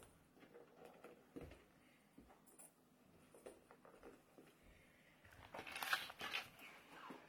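Faint rustling and light handling sounds of small items being packed into a shoulder bag, with a louder stretch of rustling and soft knocks about five and a half seconds in.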